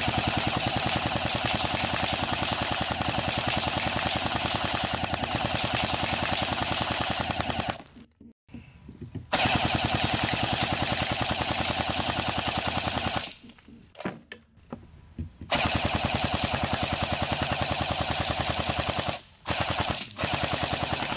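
Barra 400E electric (AEG-type) BB rifle firing .177 steel BBs on full auto: three long bursts of several seconds each with short pauses between them, then a short burst near the end.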